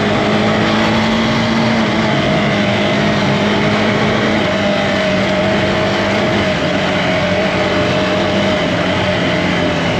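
Motorcycle engine running at a steady, low pace, its pitch stepping down slightly a couple of times, over a constant hiss of wind and road noise.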